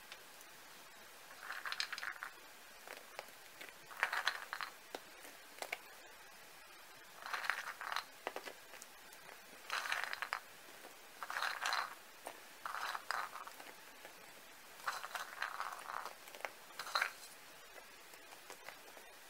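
Cooked oak acorns being shelled by hand: about eight short bursts of crackling and scraping as the shells are cracked and peeled away, with quiet pauses between them.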